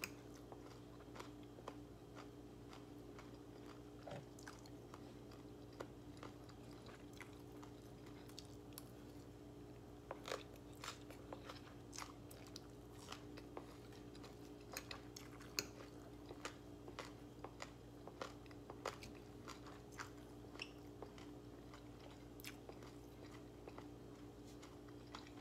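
Close-up chewing and crunching of green papaya salad with fish balls, in short crisp crunches and mouth clicks that come more often in the second half. A steady low hum runs underneath.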